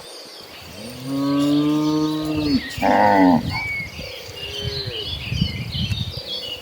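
Cattle mooing: one long, low moo about a second in, falling in pitch at its end, followed at once by a shorter, higher moo.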